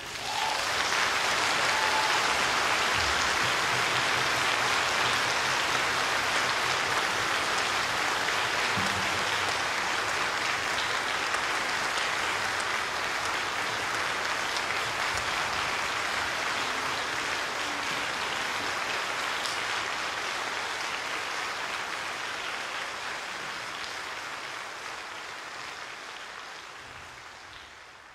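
Audience applauding steadily, starting right after the music stops and fading out gradually over the last several seconds.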